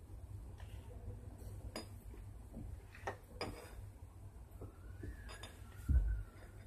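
Hands spreading and pressing a T-shirt flat on a tiled floor: scattered light clicks and knocks, with a dull thump about six seconds in as the palms press down.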